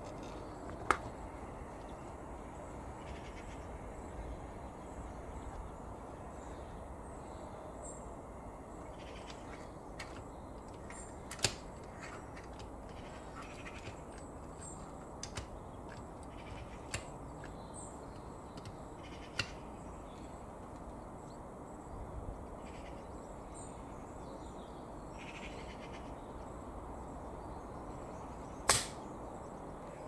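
Quiet outdoor ambience with faint bird calls, broken by a few sharp clicks and knocks from a tire plug repair gun being pushed into the tread and its trigger squeezed; the loudest knock comes near the end.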